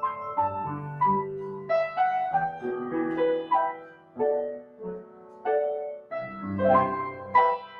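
Upright piano played solo in a slow, meditative piece: single notes and chords, each dying away, softer in the middle and building again near the end.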